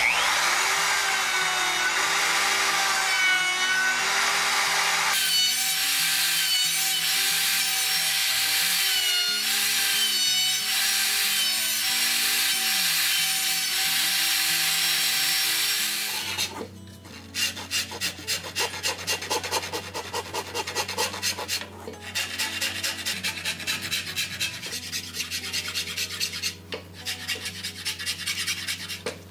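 An electric plunge router running steadily as it cuts around the wooden felloe of a buggy wheel, its whine wavering a little with the cut. After about 16 seconds it stops and a hand file scrapes across the felloe in quick back-and-forth strokes.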